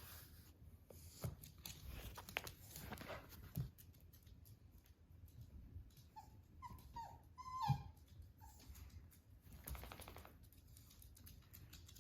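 Basenji puppy whimpering: a run of short, high whines, falling in pitch, about six to eight seconds in, with soft rustling and light clicks around them.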